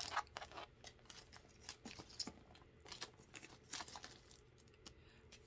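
Faint crinkling and rustling of paper wrapping and tags as small handbags are handled and set down, with scattered light clicks and taps that thin out toward the end.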